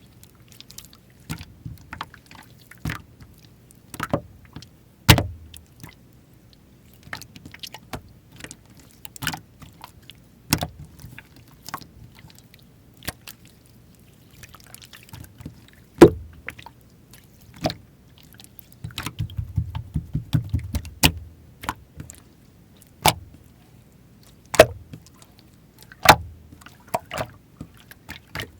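Slime being pressed, poked and stretched by hand, giving irregular sharp pops and clicks every second or two, many with a soft low thud. A quick run of small crackling clicks comes about twenty seconds in.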